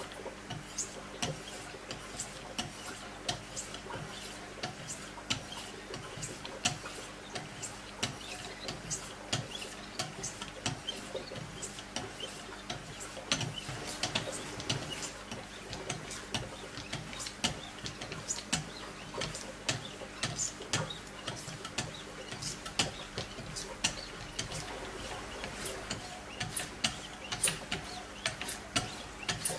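Wicked Edge guided knife sharpener: hand-held paddles with a 1500-grit diamond stone, and later 6-micron lapping film, stroked along a clamped steel knife edge. The strokes make a steady run of short scrapes and ticks, about one to two a second, over a faint steady hum.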